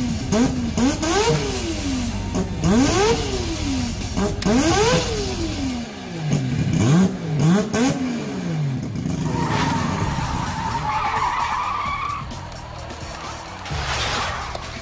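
A Mazda 26B four-rotor peripheral-port turbo rotary engine revved hard in a series of quick blips, its pitch shooting up and falling back again and again. After about nine seconds the revving stops and a steady high squeal takes over.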